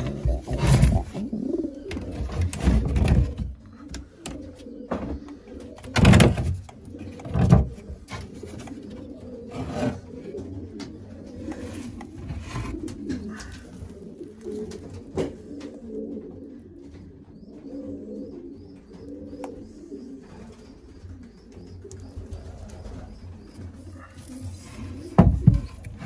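Racing pigeons cooing in low, wavering calls, broken by several loud knocks and rustles as hands handle the sitting bird and its clay nest bowl.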